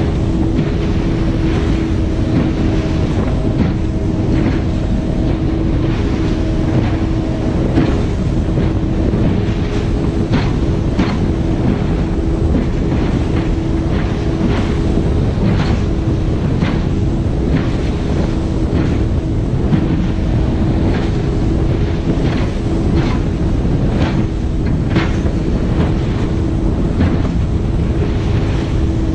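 Speedboat running flat out across open-ocean chop: a steady engine tone under a loud rush of wind and water, with the hull slapping the waves about once or twice a second.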